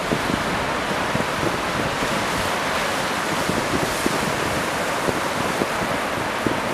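Steady rush of ocean surf, with wind buffeting the microphone in irregular low thumps.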